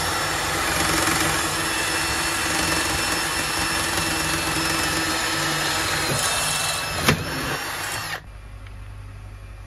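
Milwaukee M18 cordless drill running at speed, its bit cutting through an aluminium panel into the iron frame beneath to make rivet holes. A sharp click comes about seven seconds in, then the drill winds down and stops about eight seconds in, leaving a quieter low hum.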